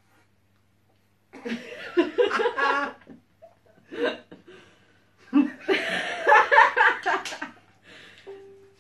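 A man and a woman laughing hard together in bursts, starting about a second in, with a short lull between the bouts.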